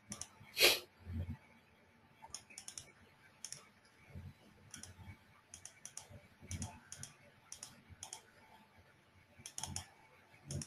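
Irregular clicks and key taps at a computer keyboard, with one sharper click about a second in and a few soft low thumps in between.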